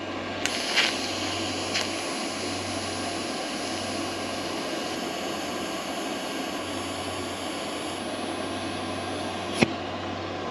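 Lift-start TIG arc from a Simder SD5010 Pro welder burning steadily on steel with an even hiss and a faint high whine. It starts about half a second in and breaks off with a sharp snap near the end.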